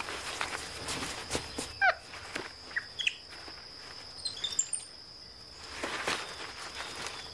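Tropical forest ambience: a steady high insect whine with a few short bird chirps, and scattered crackling snaps and rustles of twigs and leaf stems as a monkey handles them while feeding on a branch.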